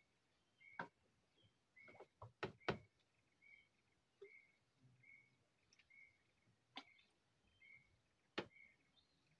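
Faint outdoor ambience: a bird repeats a short, high single note roughly every two-thirds of a second. Several sharp clicks or knocks are heard, a cluster about two and a half seconds in and a louder one near the end.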